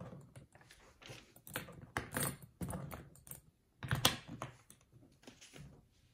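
Metal zipper pulls of a hardside suitcase rattling and clicking against its TSA combination lock as they are lifted out and pushed back into the lock slot: a string of irregular clicks, the loudest about two seconds in and again about four seconds in.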